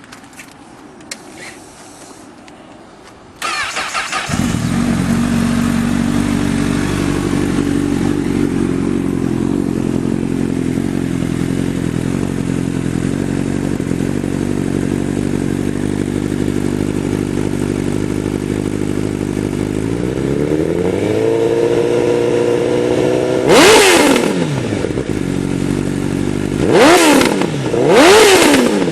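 Honda CBR 1000 sport bike's inline-four engine started, catching about three and a half seconds in after a couple of clicks, then idling steadily. The idle rises a little about two-thirds through, then three sharp throttle blips near the end send the pitch shooting up and falling back.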